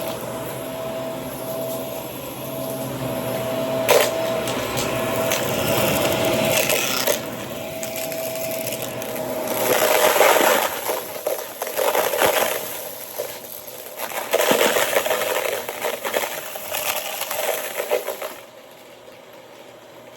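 Shark vacuum cleaner running over a small mess of debris, its motor giving a steady whine, with irregular bursts of noise in the second half as debris is sucked up. Near the end the sound drops sharply to a much lower level.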